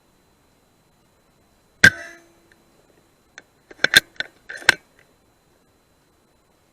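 A single rifle shot about two seconds in, with a short ring after it, then a quick run of sharp metallic clicks as the rifle's bolt is worked to reload.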